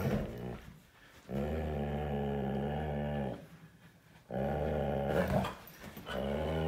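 Giant Schnauzer growling with a milk bone in its mouth: three long, steady growls, the last running on past the end. It is a play growl, guarding the treat in a game of keep-away.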